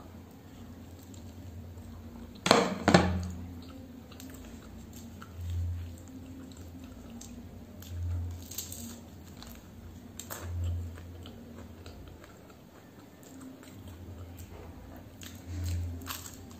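Close-miked eating of a samosa: a loud crisp bite about two and a half seconds in, then slow chewing with soft low thuds every couple of seconds and small wet mouth clicks.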